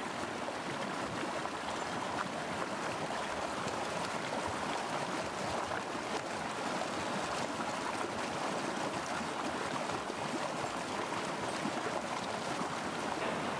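Mountain river rushing steadily over rocks.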